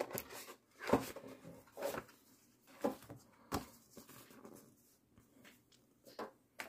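Paper sticker sheets being handled and lifted out of a metal tin lunch box: a handful of brief rustles and light taps spread out, with quiet between them.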